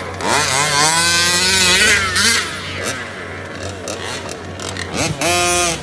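Engines of several 1/5-scale RC off-road race cars revving up and down as they race, the pitch rising and falling with the throttle, then holding steadier near the end.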